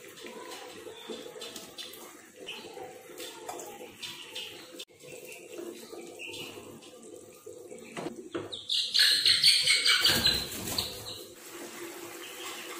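Potato and tomato curry bubbling and sizzling in a nonstick frying pan on a gas stove, with small clicks. A louder rush of hissing noise lasts about two seconds near the end.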